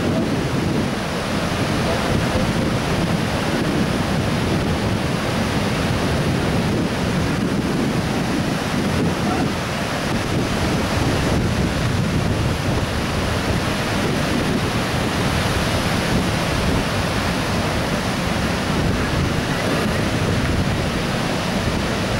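Sea surf breaking on a sandy beach, mixed with wind buffeting the microphone: a steady rushing noise.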